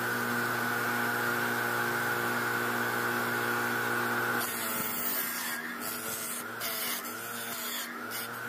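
Bench grinder with a wire brush wheel running with a steady hum. About halfway through, a small metal engine part is pressed against the spinning wire brush, adding a scratchy hiss while the motor's pitch wavers under the load.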